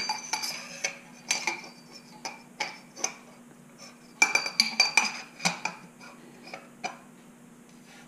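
Metal parts of a DR-Z400 fork cartridge clinking and knocking as the damper rod and top-out spacer are handled in the aluminium cartridge tube. Light metallic clicks with a ringing tone, busiest about four to five and a half seconds in and sparser near the end.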